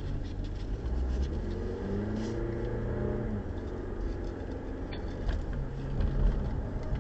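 Car driving on wet pavement, heard from inside the cabin: steady engine and tyre noise with a low rumble, the engine note rising and falling a couple of seconds in. A short click about five seconds in.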